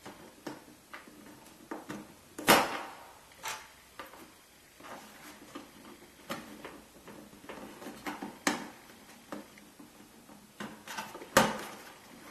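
Hard plastic pet carrier being handled: a series of plastic clicks and knocks, with two louder knocks about two and a half seconds in and again near the end.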